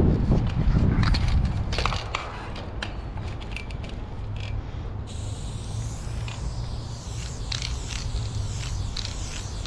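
Aerosol spray-paint can spraying a black fill onto a concrete wall in short hissing bursts, with clicks and knocks from handling. A loud rumble of movement comes in the first couple of seconds.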